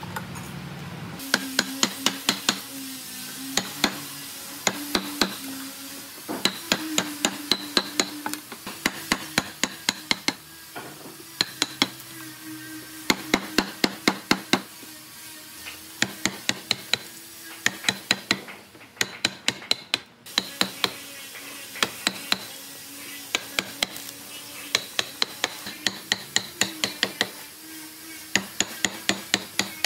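Light hammer taps on wood, struck in quick runs of several blows with short pauses between the runs.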